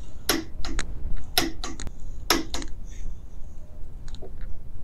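Click-type torque wrench tightening the steering gearbox-to-frame bolts to 70 foot-pounds: a loud sharp metallic click about once a second over the first three seconds, each followed by lighter ratchet clicks, then only a faint tick or two.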